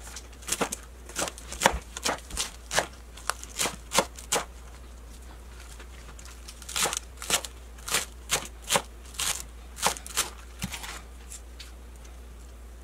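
Kitchen knife chopping green onions on a wooden cutting board: a run of crisp, uneven chops that pauses about five seconds in, resumes, and stops about eleven seconds in.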